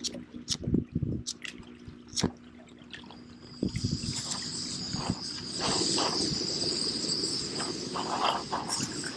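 Camping gas burner under a stovetop moka pot: a few sharp clicks as the burner is worked, then from about three and a half seconds in a steady high hiss.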